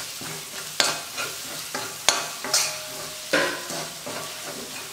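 A spatula stirring a thick masala paste in a stainless steel kadai, with several sharp scrapes against the pan over a low sizzle of the paste frying in oil.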